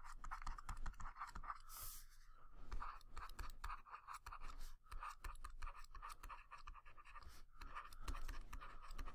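Faint scratching and tapping of a stylus on a tablet as words are handwritten, in many quick short strokes.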